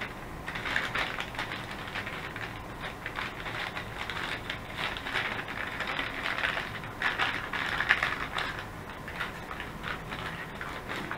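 Plastic MRE pouches crinkling and rustling as a sealed beverage bag and the entree pouch are worked into a flameless ration heater bag, with irregular crackles throughout.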